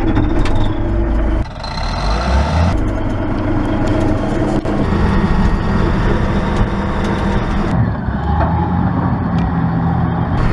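Bulldozer's diesel engine running loud and steady, its note shifting a few times as the machine works.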